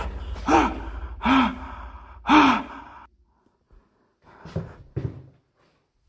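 A frightened man's gasping cries, three short breathy 'ah!'s, each rising then falling in pitch, in the first two and a half seconds, then a few faint sounds near the end.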